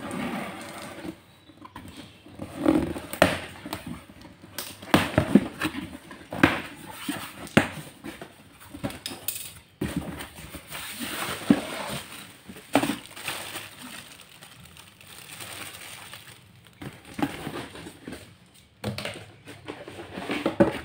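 Cardboard carton being unpacked: a box cutter slitting packing tape, the flaps scraping and folding open, and parts lifted out, in irregular scrapes, knocks and rustles with several sharp knocks. Plastic wrapping crinkles as the parts come out near the end.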